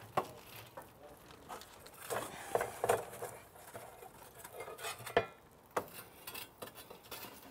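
Metal fire tool scraping and knocking against wood embers on the floor of a wood-fired oven as the coals are raked forward: irregular clinks, scrapes and clatter, busiest about two to three seconds in, with single sharp knocks near five and six seconds in.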